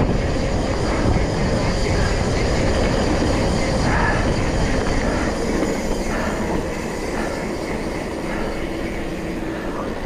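Mountain bike rolling over a rough dirt road: a steady rumble and rattle of tyres and frame over the loose, bumpy surface, with wind buffeting the handlebar camera's microphone.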